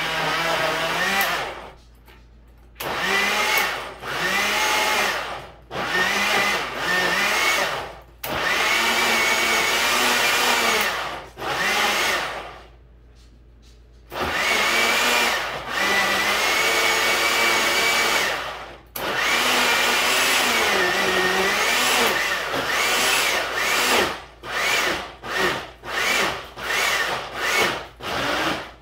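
Countertop blender pulse-chopping green chili peppers and garlic in oil: runs of a few seconds each, the motor whine rising as it spins up and dropping as it stops, with short gaps between. Near the end it is pulsed in quick short bursts, about one a second.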